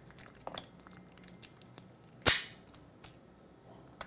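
A sharp snap about two seconds in as the phone's glued-in lithium-ion battery is pulled free of its adhesive, amid small clicks and crackles of handling.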